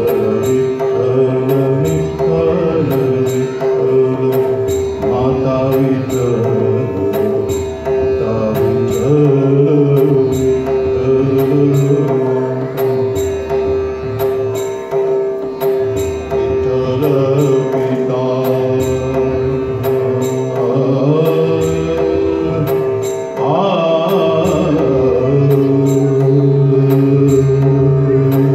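A man singing solo into a microphone, a slow melodic song with long held notes over a steady, unchanging drone.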